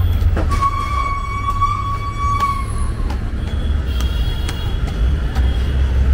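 Street traffic rumble with one steady, high-pitched vehicle horn held for about two and a half seconds, starting about half a second in.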